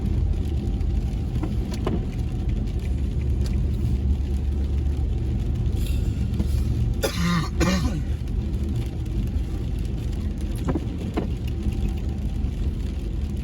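Car cabin noise while driving: engine and road noise running steadily. A few light clicks, and a short burst of noise about seven seconds in.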